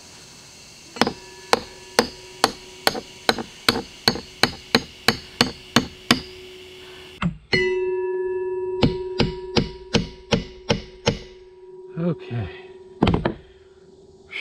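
Steel hammer tapping the long mounting bolts of a drum anchor winch down through a fiberglass boat deck: a steady run of metal-on-metal strikes, about two to three a second, each with a ringing note. A second, shorter run of strikes follows, ending with two heavier blows.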